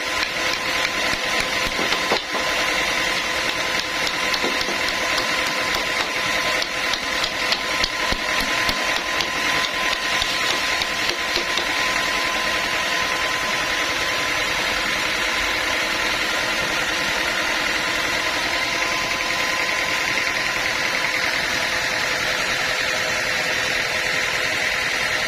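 Sawmill saw and machinery running steadily with a high whine; during roughly the first half a fast, irregular crackling rattle rides on top, then it settles to an even drone.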